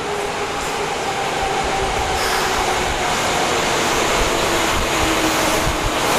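Subway train pulling into an underground station platform and slowing, with a steady rushing running noise that grows louder and a faint steady whine over it.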